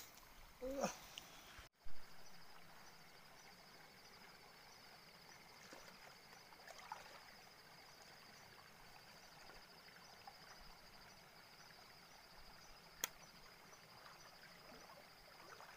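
Faint flow of a shallow stream at night, with a steady, rapidly pulsing high insect trill over it. There is a short thump near the start and a single sharp click about thirteen seconds in.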